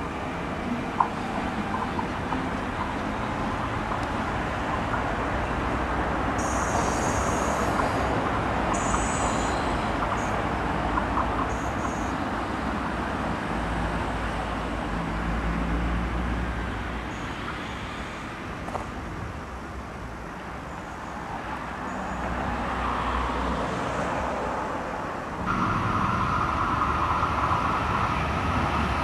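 Electric passenger trains on a main line. A double-deck train passes at speed with a steady rush of wheels on rails, then dies away. After an abrupt cut near the end, another electric train approaches with a steady roar and a high whine.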